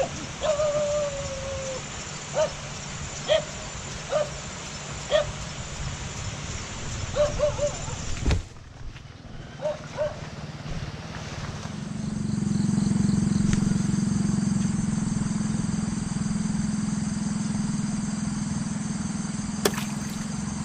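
A dog barking in short single barks, with one longer falling whine near the start, over the first eight seconds. A sharp knock about eight seconds in, then a steady low hum for the rest.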